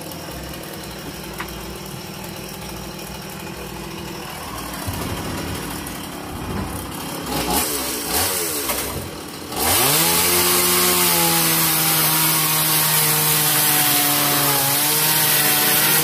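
Chainsaw idling, revved unevenly a few times, then opened up to full throttle about ten seconds in and held there, its pitch sagging a little as it cuts wood.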